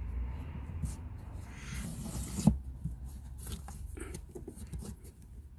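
Cabin air filter half being slid into its plastic housing behind the glove box: the filter frame rubbing and scraping against the housing, with scattered small clicks and one sharp knock about two and a half seconds in.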